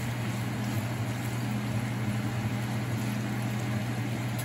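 Bacon sizzling and crackling in a skillet on high heat, over the steady hum of a kitchen fan.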